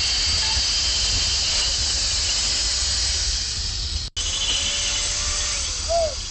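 Hand-held power cutter squaring off the end of a steel reinforcing bar, running with a steady, high-pitched hissing whine. The sound drops out for an instant about four seconds in, then continues.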